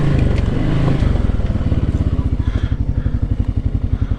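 Can-Am Outlander 700 ATV engine running under throttle, then easing off about a second in to a low, evenly pulsing rumble at low revs.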